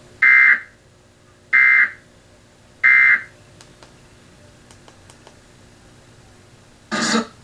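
Emergency Alert System end-of-message data tones closing a civil emergency message: three short raspy digital bursts, each about a third of a second long, evenly spaced a little over a second apart. A brief louder burst of other sound comes near the end.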